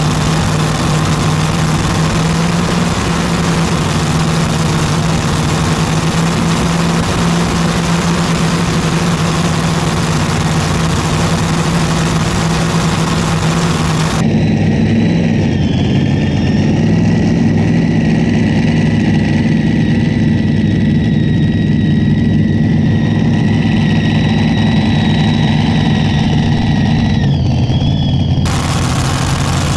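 Light-modified pulling tractor's engine idling steadily. About halfway through the sound turns duller and a thin, steady high whine rides over it, until shortly before the end.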